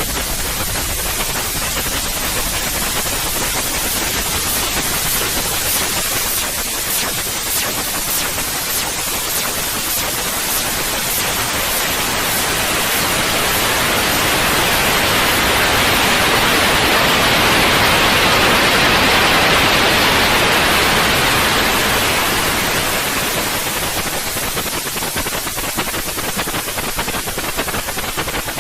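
Steady white noise hiss across the whole range of pitch, swelling louder and brighter for several seconds in the middle and then settling back to its earlier level.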